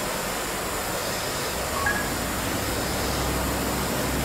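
Propane torch flame burning with a steady hiss as it heats the cast iron exhaust manifold, with a low hum joining it about a second and a half in.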